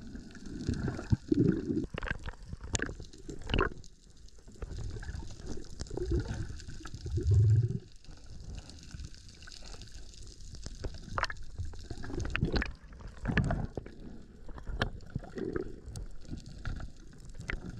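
Underwater water noise, low sloshing and gurgling, with scattered clicks and knocks from speared reef fish being handled on a metal fish stringer. There is a louder low thump about seven and a half seconds in.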